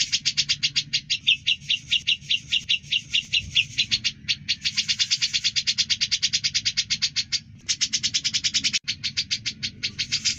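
Cucak jenggot (grey-cheeked bulbul) chattering in a fast run of short, even, high notes, about nine a second, with a brief break about four seconds in and another around seven and a half seconds.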